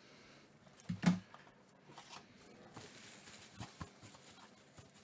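Handling of a hard plastic card holder: a sharp double knock about a second in, then scattered light taps and soft rustles.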